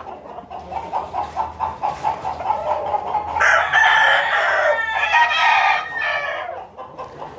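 Gamecocks in their pens: rapid clucking for the first few seconds, then a loud rooster crow beginning about three and a half seconds in and lasting about three seconds.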